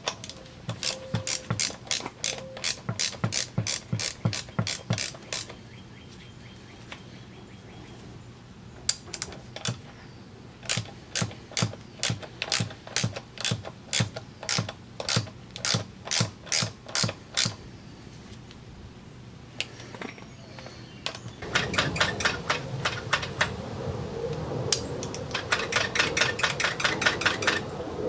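Ratchet wrench on the pitbike's rear brake caliper bleeder valve, clicking in runs of sharp, even ticks of about three a second. A faster, denser run comes near the end, as the bleeder is worked open and shut during the brake bleed.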